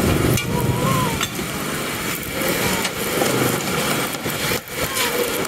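Street traffic noise: the engines of passing vehicles, loudest at the start and then easing off.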